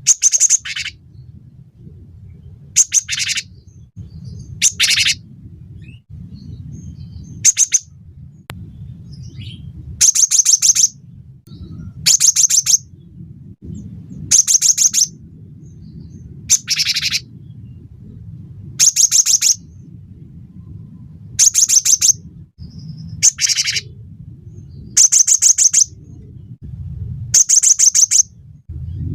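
Cinereous tit (gelatik batu) singing in short, rapid, high-pitched chattering phrases, one about every two seconds, over faint low background noise.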